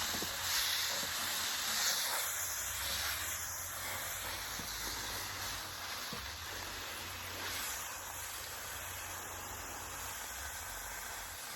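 Garden hose spraying water onto leaves in a raised bed: a steady hiss.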